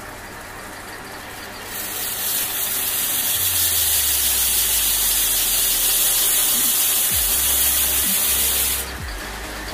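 A loud, steady hiss of gas or air escaping under pressure from a nozzle. It starts about two seconds in, holds for about seven seconds and cuts off abruptly near the end.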